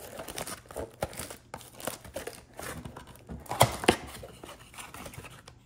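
Plastic wrapping and cardboard of a sports-card blaster box crinkling and tearing as it is opened, with two sharp snaps about three and a half seconds in.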